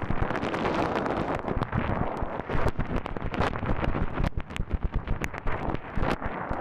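Water at a rolling boil, close-miked: a dense bubbling hiss with many quick, irregular pops of bursting bubbles.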